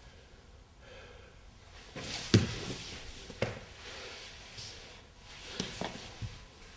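A dancer's body falling, kneeling and rolling on a bare floor, with his lead-coated gloves and shoes striking it: scattered dull thumps and knocks over soft rustling. The loudest thump comes about two and a half seconds in, another about a second later, and a few quick knocks near the end.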